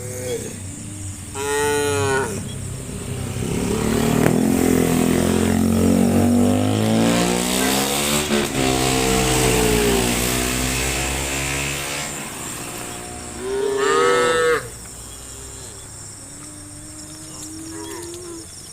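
Cattle mooing: a short call about two seconds in, then a long stretch of loud, deep mooing with wavering pitch, another call about fourteen seconds in, and a fainter one near the end.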